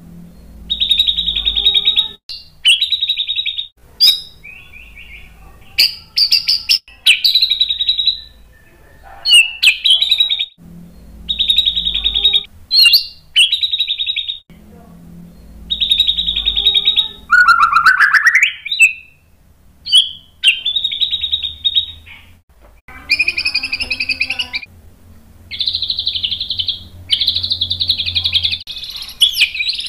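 White-rumped shama singing: a run of loud, high whistled phrases, each a second or two long with short pauses between, and one long rising whistle a little past halfway. The phrases grow longer and fuller near the end.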